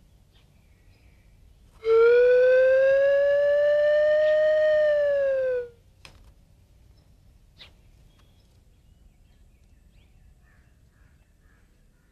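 A loud, held whistle-like sound-effect tone lasting about four seconds, rising slightly and then sliding down as it cuts off. Two faint clicks follow.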